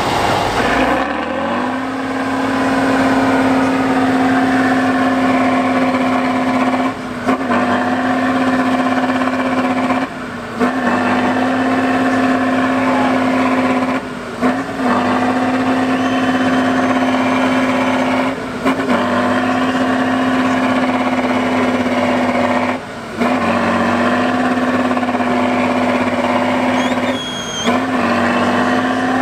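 Diesel engine of a multi-axle off-road trial truck held at high revs under heavy load as it crawls up a steep mud slope. The revs rise in the first two seconds, then hold steady, dipping briefly about every four seconds.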